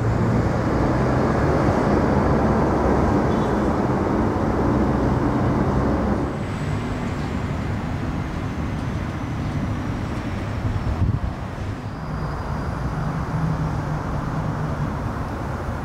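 Road traffic going by: a steady wash of vehicle engines and tyres with a low engine hum that shifts as vehicles pass, about six seconds in and again near twelve seconds.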